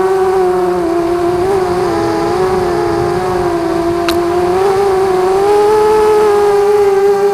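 Motors and propellers of a ZMR250 racing quadcopter whining steadily in flight, the pitch wavering slightly up and down with throttle. A short tick about four seconds in.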